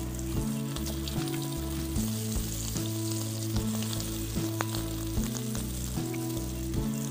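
Balls of rice and urad dal batter (thaen mittai) deep-frying in a wok of hot oil: a steady sizzle with small crackles, and a slotted spoon stirring through the oil. Background music with a steady bass line plays underneath.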